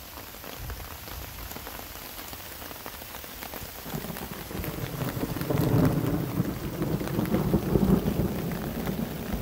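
Steady rain, with drops striking the tarp overhead. From about four seconds in, a low rumble of thunder builds and rolls on to the end.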